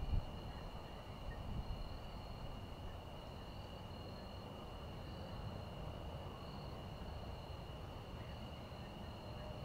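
Crickets trilling steadily in two high, continuous tones, one of them pulsing gently, with brief low rumbles right at the start and again about a second and a half in.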